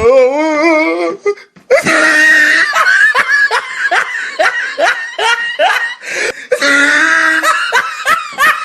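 The last wavering sung note of a Hindi film song cuts off about a second in. A person then laughs loudly in a long, rapid run of 'ha' bursts, ending in a drawn-out laugh.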